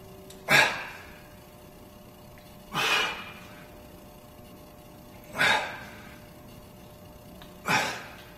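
A man's forceful exhalations, four of them about two and a half seconds apart, one with each rep of a barbell bent-over row.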